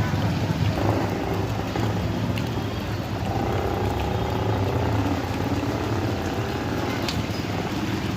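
Street traffic noise on a waterlogged road: vehicles running steadily, with a continuous low rumble.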